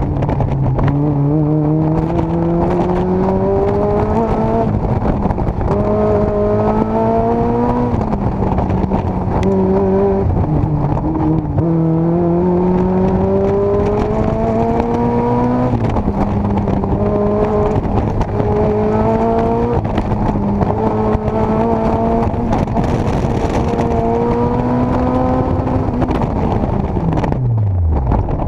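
Mazda Miata's four-cylinder engine heard from the open cockpit on an autocross run, revving: its pitch climbs under throttle and drops back when the driver lifts or brakes, over and over. Near the end the revs fall away steeply as the car slows.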